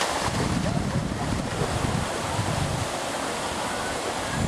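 Wind buffeting the microphone in an uneven low rumble, over the steady rush of river water.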